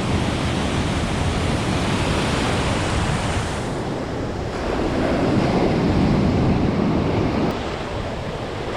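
Ocean surf breaking and washing on a sand beach, with wind rushing over the microphone; it swells louder past the middle.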